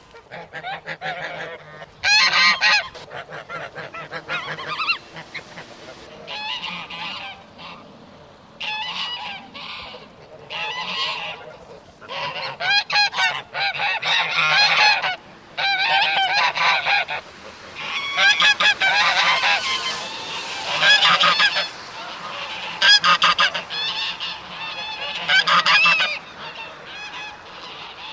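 A flock of domestic geese honking and cackling, with many overlapping calls coming in bursts of several calls each, close together with short lulls between.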